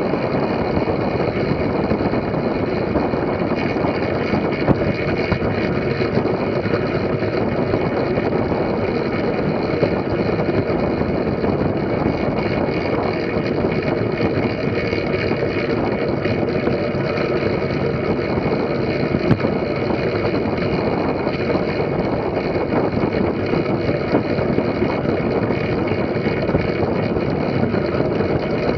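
Steady rush of wind over an action camera's microphone, mixed with the hum of track-bike tyres rolling at speed on the velodrome track.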